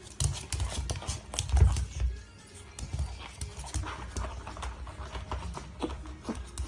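A pug scuffling with a sneaker on a wooden floor: a run of clicks and knocks from its claws and the shoe against the boards, with dull thumps, the loudest about a second and a half in.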